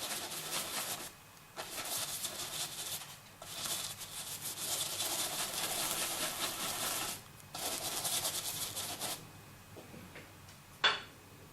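Paintbrush scrubbing on canvas in circular strokes, in several stretches a few seconds long with brief pauses between them. A single sharp click near the end.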